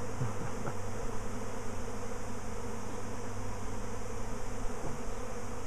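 A swarming honeybee colony: thousands of bees in flight making a steady, dense buzz, with single bees now and then whizzing close past with a brief rise and fall in pitch.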